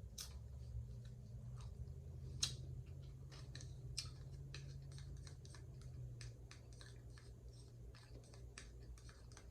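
Faint, scattered clicks and crinkles of takeout packaging being handled, such as plastic sauce cups and the food bag, with sharper clicks about two and a half and four seconds in.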